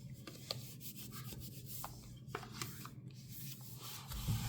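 The flat side of needle-nose tweezers rubbing and scraping along paper, pressing a sticker down into a journal's centre crease, with a few light ticks.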